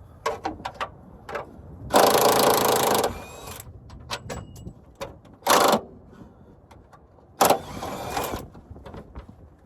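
Cordless impact wrench working bolts loose: a few quick clicks, then three bursts of rapid hammering, the first and longest about a second, the last two shorter.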